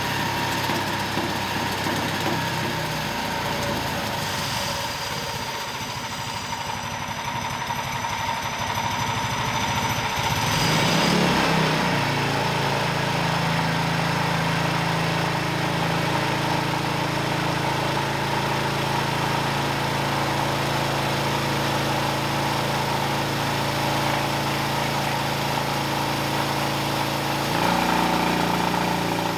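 Predator Ghost 212cc single-cylinder engine running steadily on a dyno during its break-in cycle. Its note changes about 11 seconds in and again near the end.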